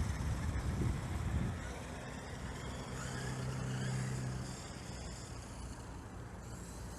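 Electric RC monster truck driving on a 6S battery: low rumbling bursts at first, then a steady motor hum with a faint rising whine that swells to its loudest about four seconds in and then fades.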